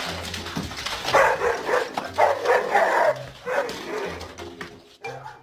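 A dog vocalizing in about four short bursts.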